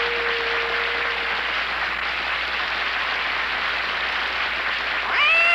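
A cat meows once near the end, its call rising and then falling in pitch. It sits over a steady hiss, while a held music note fades out in the first second or so.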